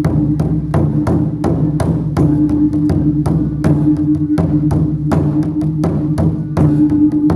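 Chinese gong-and-drum (luogu) percussion playing a steady rhythm of sharp strikes, about three or four a second, over a low ringing tone held beneath the beats.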